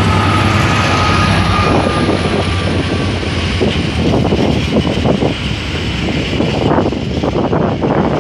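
Class 66 diesel locomotive's two-stroke EMD V12 engine running as it passes close by, with a steady whine that fades over the first couple of seconds. After that the loaded container wagons rumble past with rapid, uneven clattering of wheels over the rails.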